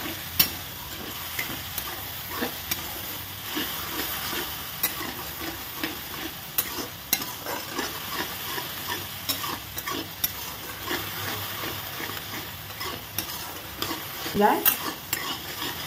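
Metal spatula stirring and scraping chickpeas around a kadhai, in spiced oil with a little water added, which sizzles steadily underneath. The spatula makes irregular scrapes and clicks against the pan, a few each second.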